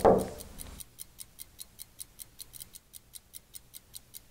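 Steady, even ticking, about four light ticks a second, like a clock's. The end of a man's speech fades out in the first second.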